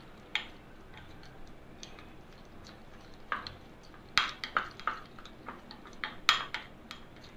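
Metal spoon stirring a thick wet spice paste in a small glass bowl, clinking and scraping against the glass in scattered strokes. The sharpest clinks come in clusters about four and six seconds in.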